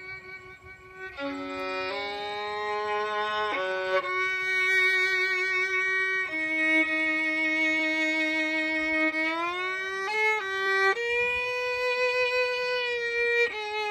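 Background music: a solo bowed fiddle plays a slow melody of long held notes that slide from one pitch to the next.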